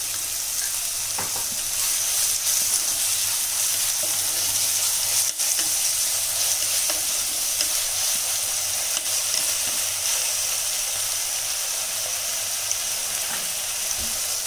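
Chopped onions sizzling in hot oil in an earthenware kadai, stirred with a wooden spatula: a steady frying hiss with a few light clicks.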